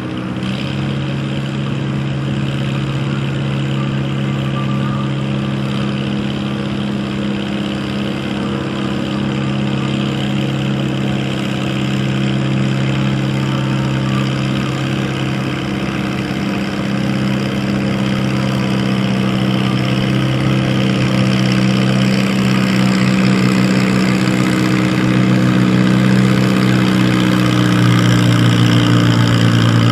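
A farm tractor's diesel engine running at a steady speed, growing gradually louder.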